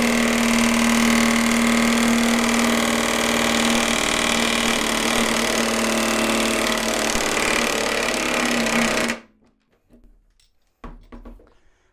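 Ingco 20V cordless impact wrench hammering steadily on an M20 nut at one constant pitch, then stopping abruptly about nine seconds in. Under the tool's force the nut's threads strip on the steel test rig.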